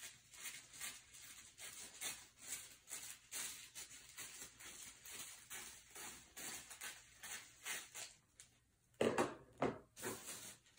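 Scissors cutting through tissue paper: a faint run of short snips and paper crinkling, about two or three a second, with a few louder rustles of the paper near the end.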